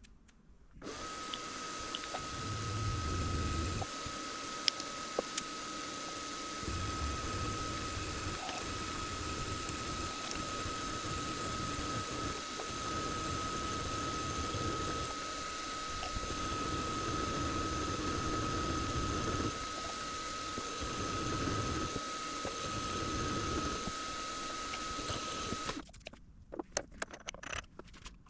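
A small benchtop machine tool running under power, with a steady high whine over a rougher cutting or load noise that swells and eases. It starts just under a second in and shuts off suddenly near the end, followed by a few light clicks.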